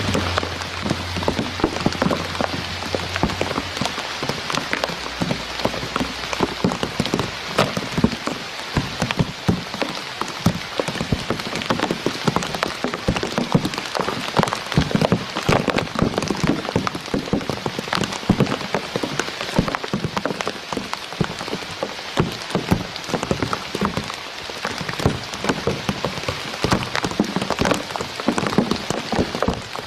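Steady rain: a dense, even pattering of drops.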